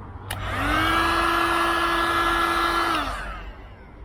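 Electric heat gun switched on with a click, its fan motor spinning up to a steady whine with a rush of air for about two seconds, then switched off and winding down. It is warming vinyl film so it can be pressed flat.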